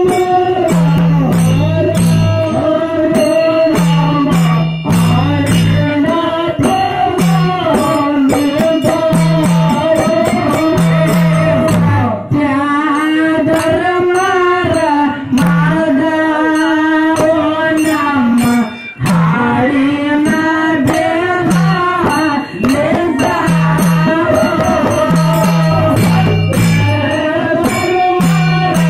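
Loud Indian devotional music: a singing voice over a steady drone, repeating bass notes and constant percussion.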